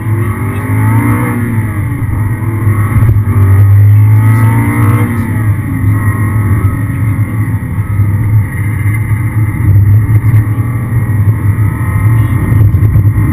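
Aston Martin V8 Vantage's V8 engine heard from inside the cabin, revving up and dropping back twice in the first five seconds as it works through the gears, then running on at steadier revs over a constant low drone.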